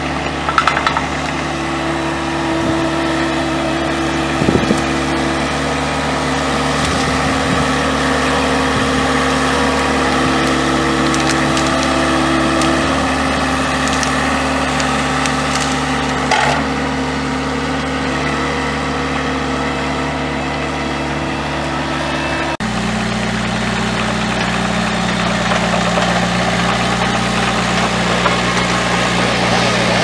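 Vermeer S800TX tracked mini skid steer's engine running steadily under work, with branches cracking and snapping a few times. About two-thirds of the way through, the engine note shifts abruptly.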